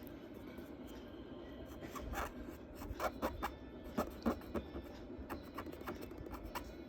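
Charcoal scratching across drawing paper in a series of short strokes, bunched in the middle.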